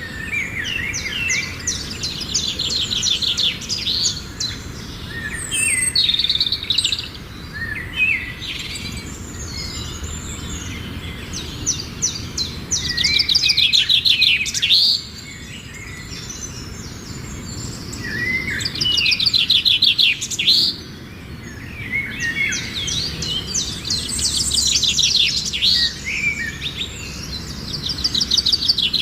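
Several birds chirping and singing, with repeated bouts of fast, high trills a few seconds long and shorter chirps between them.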